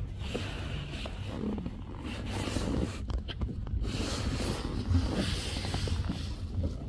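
Steady low rumble of wind on the microphone and water noise from a small boat on open water, with a few faint knocks.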